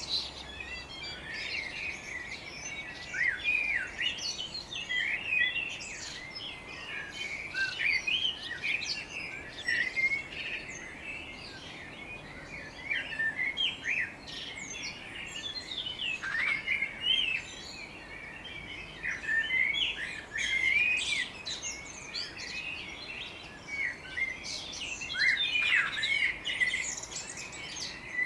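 Garden songbirds in a morning dawn chorus, several birds chirping and singing at once in a dense, unbroken run of short high chirps and trills.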